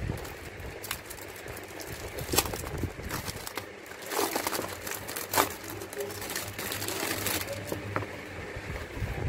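Clear plastic wrapping film crinkling and crackling in irregular spurts as it is handled and pulled off a zippered sketching-set case.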